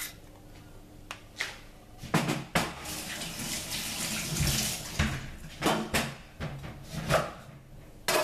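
Running water, starting about two seconds in, with a few knocks and clatters of handling.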